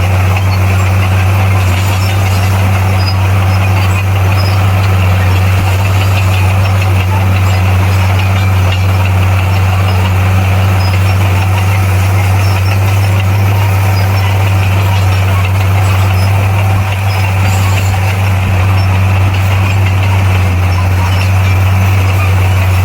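Bulldozer's diesel engine running steadily, a low even drone that holds the same pitch and loudness throughout.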